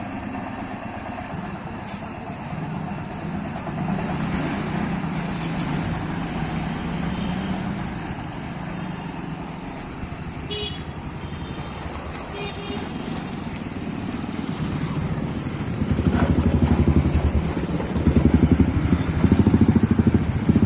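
Motorcycle and other vehicle engines idling at a railway level crossing, with two short horn beeps about halfway through. From about 16 seconds a much louder, rapidly pulsing low rumble sets in and keeps going.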